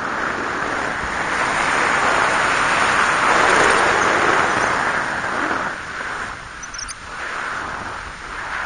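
Wind rushing over the camera microphone of a paraglider in flight, a steady rushing noise that swells near the middle and eases after about six seconds.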